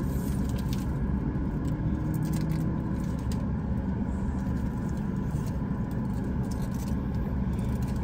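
Steady low rumble of a car running, heard from inside the cabin.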